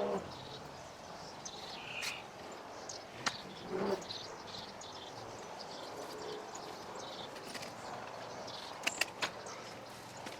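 Small birds chirping on and off, with a few sharp knocks and clicks, a quick run of three near the end.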